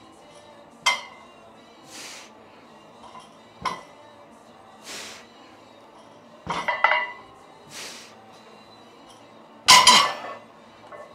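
Loaded barbell clanking, its plates rattling, four times about three seconds apart as deadlift reps are pulled and set down. The loudest clank comes near the end, and short breathy hisses fall between the clanks.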